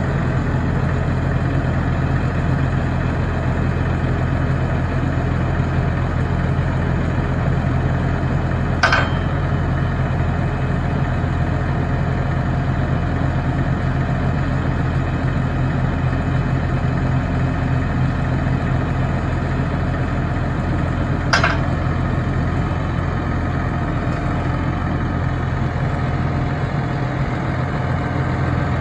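New Holland T7.270 tractor's diesel engine idling steadily while its rear cultivator drill folds up on the hydraulics, with two short clicks about nine and twenty-one seconds in.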